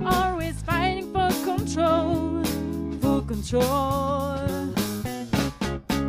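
Music: a singer holding notes with vibrato over a steady instrumental backing.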